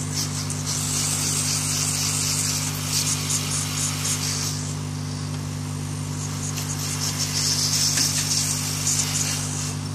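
Hot-air gun blowing a steady stream of air over a phone's circuit board to dry off cleaning alcohol: a constant fan hum under a rushing hiss that grows louder twice.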